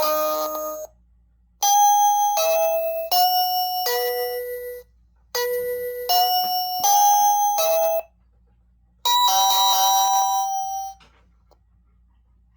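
Wink WNK-SIR1 Z-Wave siren's speaker playing electronic doorbell chimes: a four-note chime phrase, a second four-note phrase answering it, then a single long chime note, with short silences between.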